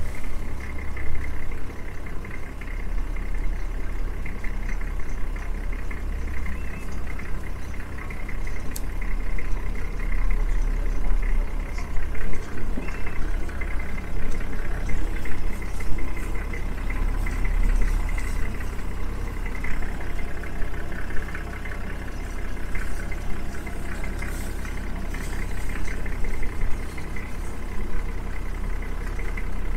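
Vehicle engine running at low speed, a steady low rumble.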